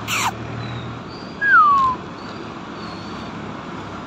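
A puppy whining: a brief sharp squeal at the start, then one clear falling whine of about half a second, about a second and a half in.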